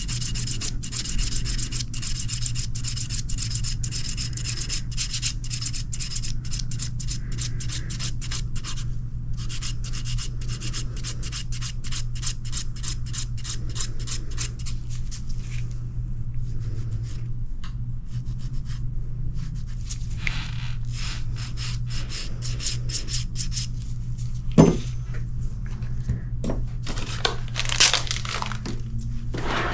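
Rapid, dense rubbing strokes of an abrasive file sanding a rebuilt toenail, with a steady high whine through the first half. The strokes grow sparser later on, with a sharp knock about three-quarters of the way through.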